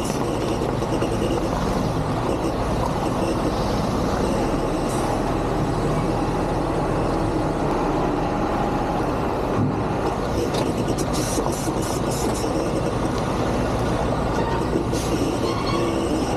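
Semi truck's diesel engine running steadily at low speed as the tractor-trailer slowly reverses, with a few short clicks or rattles about two-thirds of the way through and again near the end.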